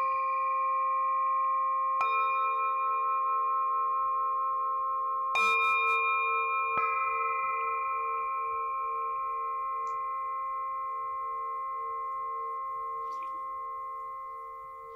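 Singing bowls struck several times, about two, five and a half and seven seconds in, each strike adding to a long, overlapping ring. The lowest tone wobbles slowly, and the ringing fades gradually.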